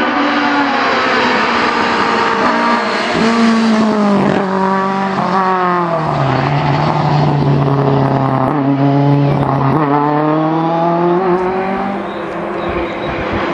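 Rally car engine at full stage pace, its revs climbing and dropping again and again as it shifts gears.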